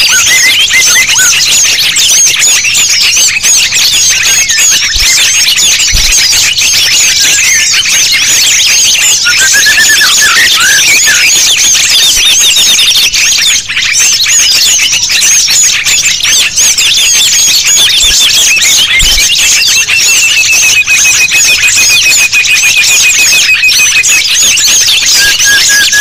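A dense, loud chorus of many small songbirds calling and chirping over one another, with a fast trill held at one pitch for several seconds in the second half. This is a bird-lure mix ('suara burung ribut') played to draw wild birds in.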